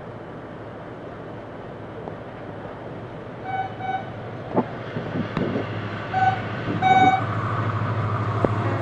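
Approaching HGMU-30 diesel-electric locomotive sounding its horn in short toots, two quick ones about three and a half seconds in and two more around six and seven seconds. Its engine's low drone and the train noise grow louder as it comes on.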